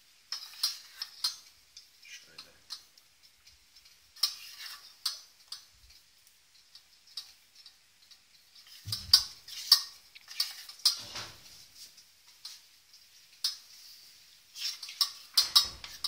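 A utensil stirring melting chocolate in a stainless-steel bowl set over a pot, tapping and clinking against the metal in irregular clicks, with a few heavier knocks about nine and eleven seconds in.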